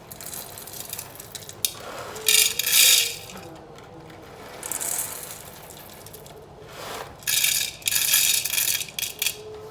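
Whole coffee beans rattling as they are scooped and poured into a coffee grinder, in several short bursts, the loudest a little over two seconds in.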